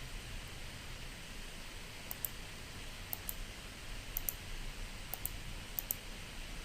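Light clicking on a computer, in quick pairs about five times over a few seconds, over a faint steady room hiss.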